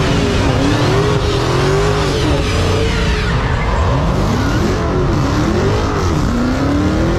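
A car engine revving up and down over and over as a car spins donuts on smoking tyres. Its pitch rises and falls every second or so.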